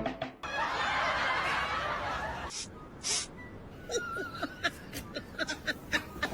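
A person laughing softly in short snickers from about four seconds in, after a couple of seconds of noisy hiss.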